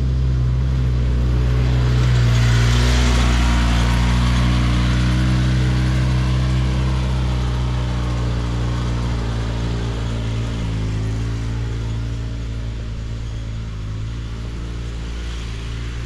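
An ATV's engine passes close about two to four seconds in, then runs on away up the dirt trail, slowly growing quieter.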